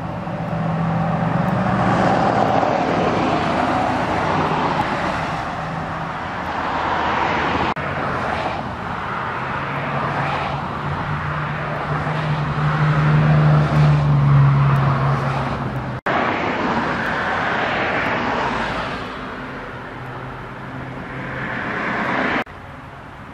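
Road traffic: cars passing one after another, the sound swelling and fading, with a heavier engine note building to its loudest about halfway through. The sound breaks off suddenly three times, at edits.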